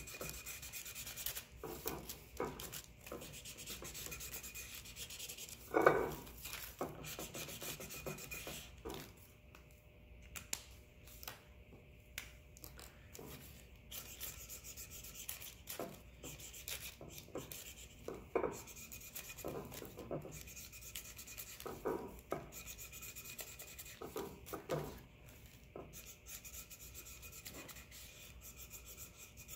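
Washable felt-tip marker scribbling on a paper coffee filter laid on a plate: fast scratchy back-and-forth strokes, easing off for a few seconds about ten seconds in. A sharp knock comes about six seconds in, and lighter knocks follow later.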